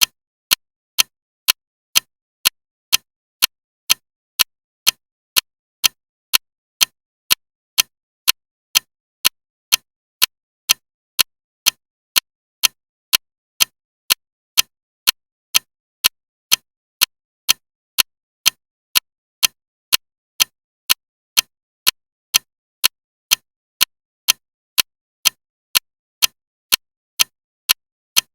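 Clock ticking loudly and evenly, about two sharp ticks a second with silence between them.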